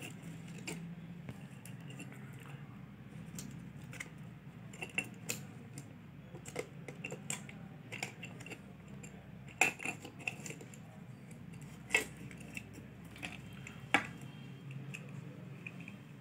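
Small metal parts clicking and clinking as brass socket contact strips, screws and wires are handled and fitted into a plastic extension board housing. The clicks are scattered, with the sharpest about ten, twelve and fourteen seconds in, over a steady low hum.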